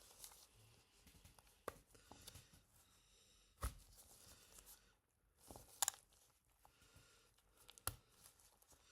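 Faint, scattered clicks and scrapes of a small opening tool prying at the back housing of an original iPhone, a few seconds apart, with near silence between them.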